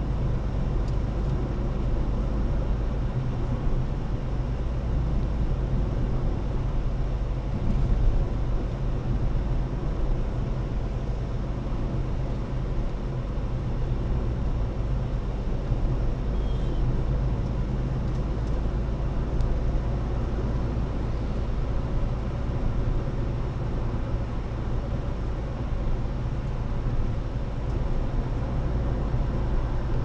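Car driving along a road: a steady low rumble of engine and tyre noise that holds even throughout.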